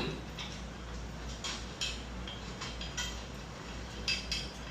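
Hand ratchet pipe threader cutting threads on steel gas pipe: scattered metallic clicks of the ratchet and die as the handle is worked in short strokes.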